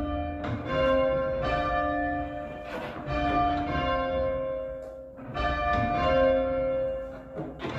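Church bells rung full circle by rope in English change ringing, struck one after another in an even rhythm with their tones ringing on and overlapping, and a short lull about five seconds in.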